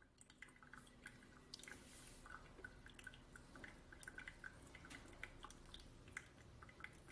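Faint thin stream of water from a gooseneck kettle pouring onto the coffee bed in a pour-over dripper, with many small dripping blips. This is the pour that takes the brew from about 140 to 240 ml.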